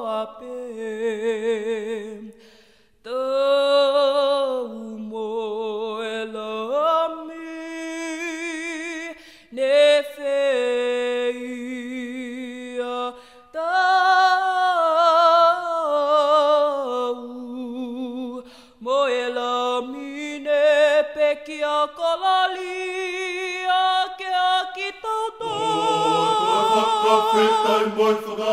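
Unaccompanied voices singing a Tongan gospel church song: phrases of held notes with vibrato, separated by short breaks. Near the end, deeper voices join and the sound thickens into a fuller group.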